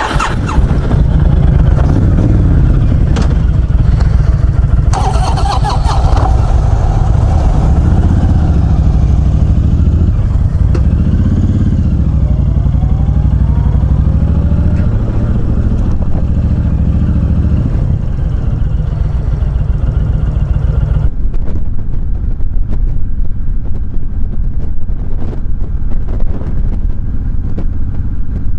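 Motorcycle engine pulling away and accelerating, its pitch climbing and dropping back several times as it shifts up through the gears, then settling into a steady cruise, with wind noise on the bike-mounted microphone.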